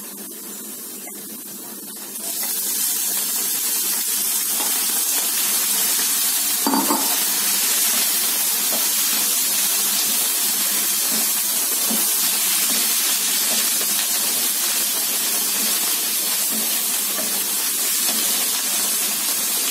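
Canned mushrooms going into hot oil and sautéed onions in a frying pan: about two seconds in, a steady sizzle starts suddenly and carries on while the mushrooms are stirred with a wooden spatula.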